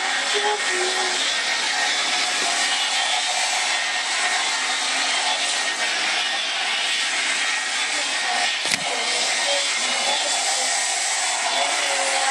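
A steady, loud rushing hiss, with faint short pitched sounds under it and one sharp click about nine seconds in.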